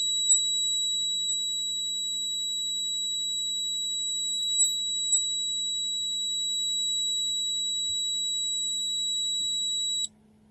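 Piezo buzzer sounding one continuous high-pitched tone, switched on by a heated starter used as a heat switch in a homemade fire alarm. Near the end it cuts off suddenly as the starter cools and the contact opens.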